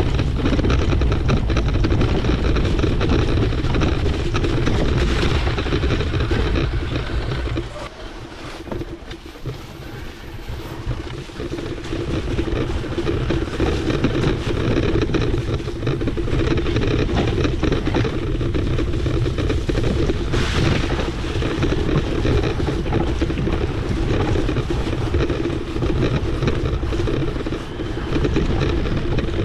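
Wind buffeting the microphone and tyre-and-track noise while riding a Trek Powerfly 4 electric mountain bike downhill. The rumble drops for about three seconds around eight seconds in, then builds again.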